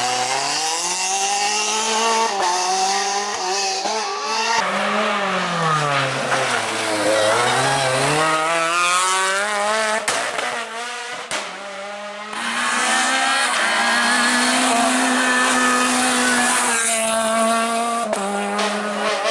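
Renault Clio R3 rally car's naturally aspirated four-cylinder engine revving hard, its pitch climbing and dropping again and again as it accelerates and lifts off, with a quieter dip about ten to twelve seconds in.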